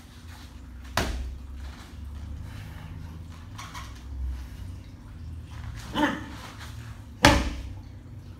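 Three sharp impacts from a martial artist's stamps and strikes in a Chen taichi cannon-fist (Pao Chui) form on foam mats: one about a second in, one at about six seconds, and the loudest near the end. A low steady hum runs underneath.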